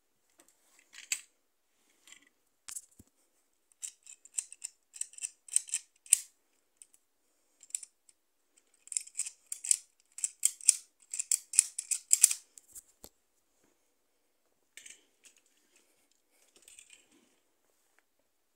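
Plastic Lego parts of a model belt-fed machine gun's mechanism clicking and clacking as it is worked by hand. The clicks come in two runs of several a second, the second run denser and louder, with a few scattered clicks before and after.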